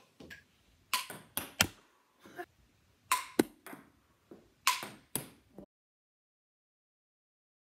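Sharp clicks and knocks of small hard objects, in three clusters of two or three, with faint murmuring between them. The sound cuts off to silence about two seconds before the end.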